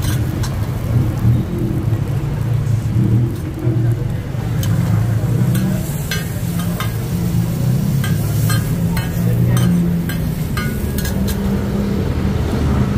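Steady low rumble of street traffic with a vehicle engine running close by. A metal spatula clicks and scrapes against a flat steel roti griddle several times, mostly in the second half, over a faint frying sizzle.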